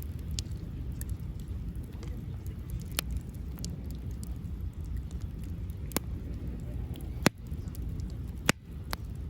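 Wood campfire crackling: single sharp pops every second or two, the loudest about seven seconds in, over a steady low rumble.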